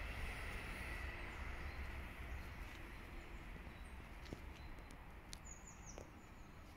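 Quiet outdoor background with a low rumble and a few faint clicks; a bird chirps briefly about five and a half seconds in.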